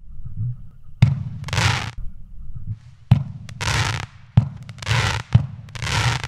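A 200-gram consumer firework cake firing shots: four sharp launch thumps about a second apart, each followed by a short hiss, over a steady low rumble.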